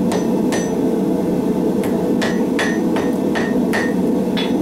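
Ball-peen hammer striking white-hot steel wire cable on an anvil, about nine ringing blows: two near the start, a pause of about a second, then a quick even run. The blows are forge-welding the twisted cable strands into solid steel. A steady rush from the forge runs underneath.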